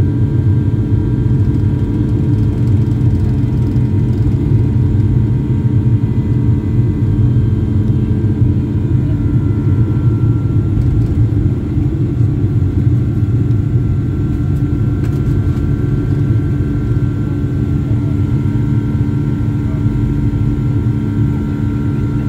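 Boeing 757-300's Rolls-Royce RB211 turbofan engines at takeoff thrust, heard from inside the cabin: a loud, steady rumble with a few steady tones on top, through the end of the takeoff roll and the climb-out.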